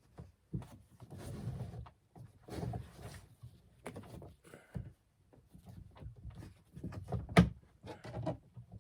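Handling noises from kayak outfitting being worked by hand: irregular rustling and scraping with light knocks, and one sharp knock about seven and a half seconds in.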